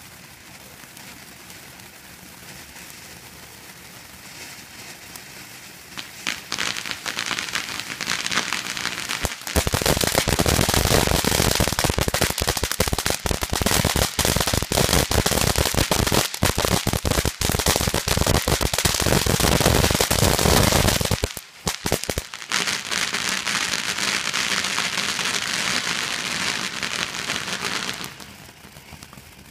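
Ground fountain firework spraying sparks. It hisses at first, breaks into dense crackling about six seconds in, and grows loud at about ten seconds. The crackling drops out briefly about two-thirds of the way through, resumes, and dies back to a hiss near the end.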